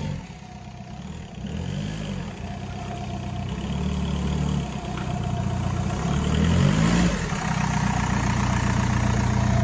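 Lifted VW Golf Mk4 estate's engine revving up and dropping back several times as the car drives over a muddy mound, getting louder as it comes closer.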